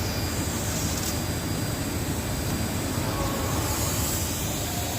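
Steady low rumble with an even hiss, unchanging throughout: constant machinery or ventilation noise, with no welding arc yet.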